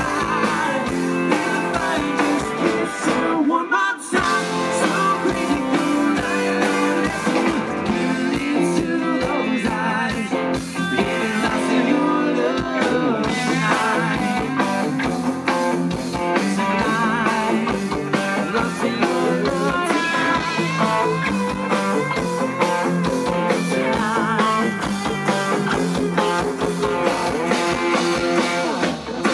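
Live country-rock band playing an instrumental passage on guitars, bass guitar and drums, with a brief break about four seconds in.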